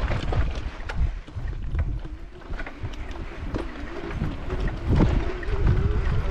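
Wind buffeting the microphone as a heavy low rumble, with scattered clicks and knocks. A faint wavering tone comes in around the middle.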